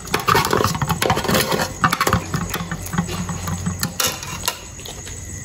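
Puppies eating from metal food pots, the pots clinking and scraping on the concrete floor in many quick clicks, thinning out near the end.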